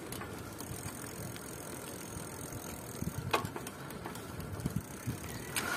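Bicycle being ridden: a steady rolling noise with low rumble, broken by short rattles about three seconds in and again near the end.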